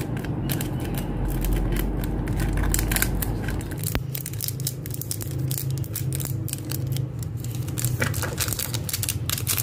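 Small plastic bag crinkling as sequins are shaken and tapped out of it into a plastic pot, in quick runs of small crackling clicks, densest in the first few seconds and again near the end. A steady low hum runs underneath.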